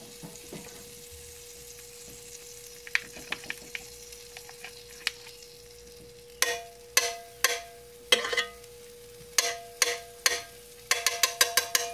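Butter sizzling in a hot electric skillet as it is stirred with a metal spoon. From about halfway the spoon knocks against the pan in a series of sharp clanks, each ringing briefly, with a quick run of them near the end. A steady faint hum runs underneath.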